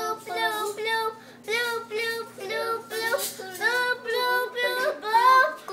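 A young girl singing in a high voice, a string of short notes.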